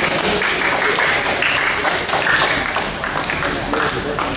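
Scattered hand clapping from a small crowd of spectators, irregular claps with a murmur of voices.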